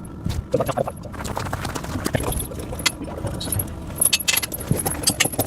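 Steel tractor tire chain links clinking and rattling in irregular bursts as the chain is handled and shifted on the tire.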